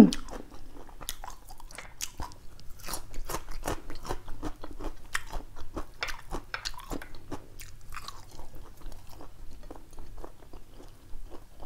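Close-miked chewing: a person eating a mouthful of food, with many small crunches and wet mouth clicks at an irregular pace.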